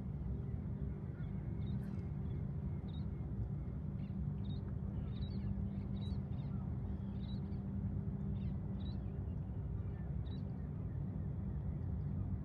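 Steady low engine hum, with short, high bird calls scattered over it from about two seconds in.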